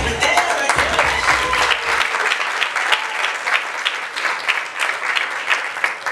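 Theatre audience applauding, a dense patter of hand claps that starts to thin out near the end, over the last beats of bass-heavy dance music that stop about two seconds in.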